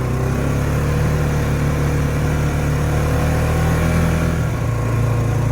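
Pickup truck engine running steadily as it pulls the boat trailer out of the water up the ramp; its note shifts about four and a half seconds in.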